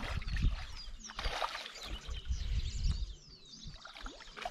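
A hooked carp thrashing and splashing at the surface close to the bank, over wind buffeting the microphone, with birds chirping.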